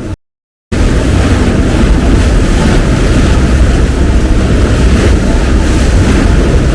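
Loud wind buffeting the microphone aboard a moving tour boat, mixed with the rush of the boat's engine and water. The sound cuts out for about half a second just after the start, then resumes steady.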